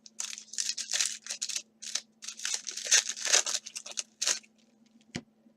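Foil wrappers of 2017 Donruss baseball card packs crinkling and tearing as packs are ripped open and cards handled, in quick irregular crackles, with one sharp click near the end.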